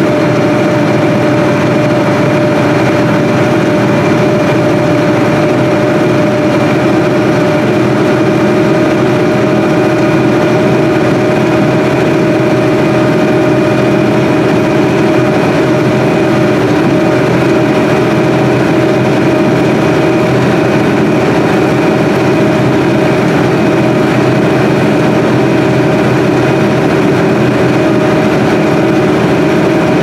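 Steady drone of farm machinery running: a tractor and a Case IH 1660 combine harvesting corn alongside, heard from inside the tractor cab, with a steady whine over the engine noise.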